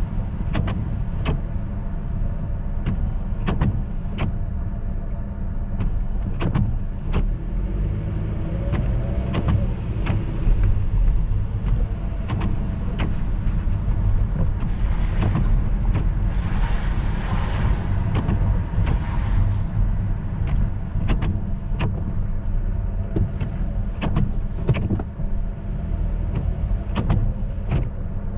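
Car driving on wet streets, heard from inside the cabin: a steady low road-and-engine rumble with scattered sharp clicks and knocks. A louder rush of hiss lasts a few seconds around the middle.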